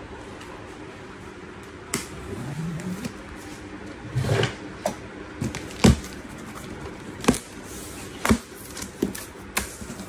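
Cardboard shipping box being opened by hand: a series of sharp knocks and taps from about two seconds in, as the flaps are pulled open and the box and its packing are handled.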